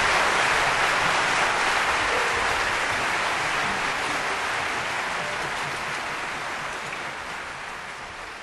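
Audience applauding, an even patter of many hands clapping that grows steadily fainter.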